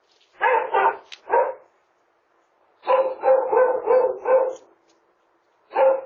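Dog barking repeatedly and loudly: a couple of barks, a single bark, then a quick string of about six barks and one more near the end.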